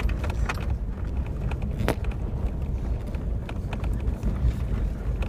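A 2000 Toyota 4Runner under hard throttle in low-range four-wheel drive, pushing through heavy snow: a steady engine and drivetrain rumble, with a couple of sharp knocks or rattles as the truck bounces.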